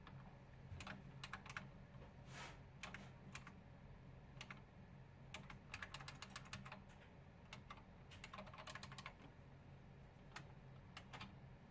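Faint key presses on an external computer keyboard: scattered single taps and short quick runs of keystrokes, over a low steady hum.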